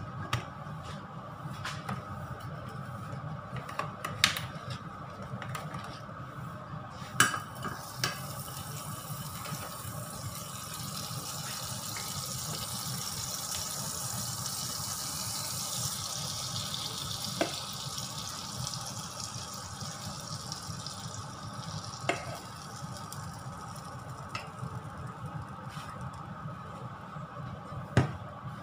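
Oil sizzling in a small frying pan on a gas burner, swelling for several seconds in the middle and then fading, over a steady low hum. Scattered knocks and clinks of pan and utensils, the loudest near the end as a ladle knocks in a steel mixing bowl.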